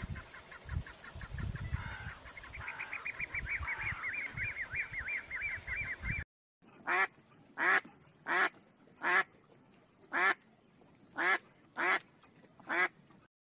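Canada geese honking: eight loud single honks, less than a second apart, in the second half. Before them come about six seconds of low thuds with a fast, even run of high chirps.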